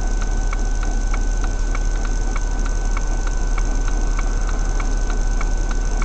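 Car turn signal clicking steadily, about three clicks a second, over a steady low hum and a thin high electrical whine in the cabin.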